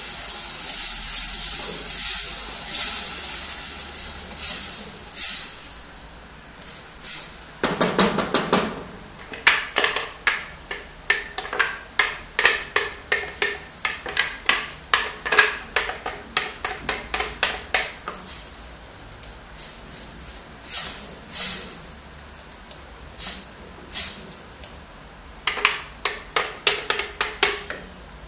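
Ground beef and tomato pulp sizzling in a pan, the hiss fading over the first few seconds; then a spoon knocking and scraping against the pan in quick strokes, about two a second, as the meat is stirred, with a pause about two-thirds of the way through.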